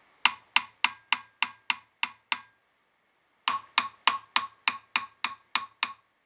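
Light hammer taps on the webs of a BSA A65 crankshaft, about four a second: a run of about eight on one web, a pause of about a second, then about nine on the other. Both webs give a similar sharp note, not quite a ring but not dull, which the owner takes as a sign that the crank is not cracked.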